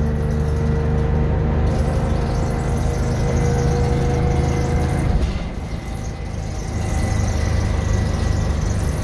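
The Detroit Diesel 6V71N two-stroke V6 diesel of a 1982 GM New Look 'Fishbowl' transit bus pulls under load, with a steady whine over the engine note, heard from inside the cabin. About five seconds in it eases off for about a second, then pulls again.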